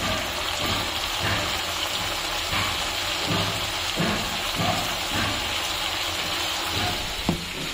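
Chicken pieces frying in spice masala in a steel pot on a gas stove, a steady sizzle as turmeric powder is tipped in. A couple of light knocks come near the end.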